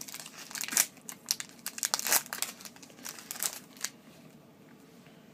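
Hockey trading-card pack wrapper crinkling and crackling as it is torn open by hand, in a quick run of crackles that stops about four seconds in.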